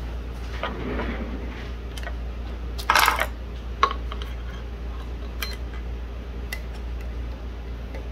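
Small metal clicks and clinks, scattered and irregular, as the metal presser feet and their screw are handled and fitted on a Juki DNU-1541S walking-foot sewing machine, with a louder rattle about three seconds in. A steady low hum runs underneath.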